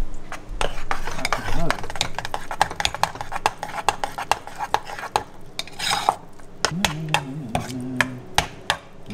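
A metal spoon stirs thick sweet pongal of rice, milk and palm jaggery in a small metal pressure cooker, with a quick run of clicks and scrapes as the spoon knocks and drags against the pot.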